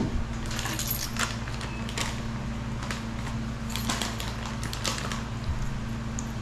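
Plastic snack packet crinkling and rustling as it is handled in short bursts, over a steady low hum.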